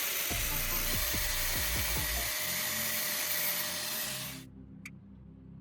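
Angle grinder cutting through the steel shell of a spark plug held in a vise, a steady high grinding whine that stops abruptly about four seconds in. Quiet background music runs underneath.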